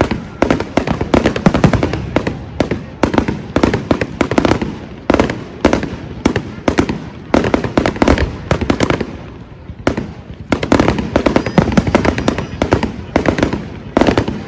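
Fireworks display going off in rapid volleys of bangs and crackles, easing briefly about two-thirds of the way through before starting up again.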